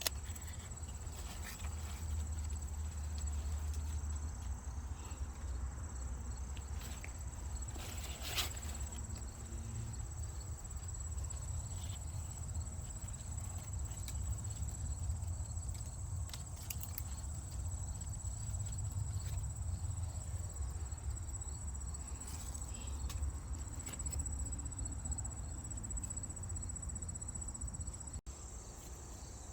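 Insects chirring steadily at a high pitch over a continuous low rumble, with scattered clicks and rustles.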